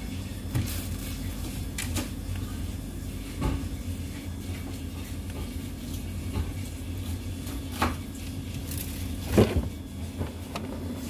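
Fruit being handled and shifted in a plastic refrigerator basket: scattered knocks and rattles of oranges and an apple against the plastic, the loudest near the end, over a steady low hum.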